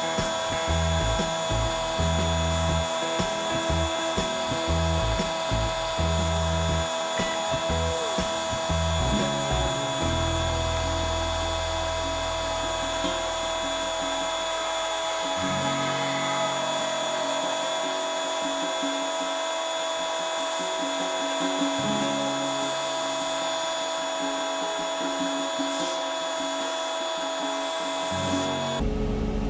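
Electric power sander running with a steady whine, sanding the boat seat; it cuts off suddenly near the end.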